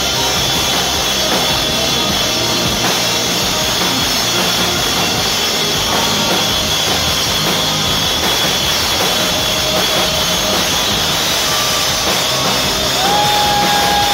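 Live rock band playing an instrumental passage, led by electric guitar and keyboard over drums, with a few long held notes.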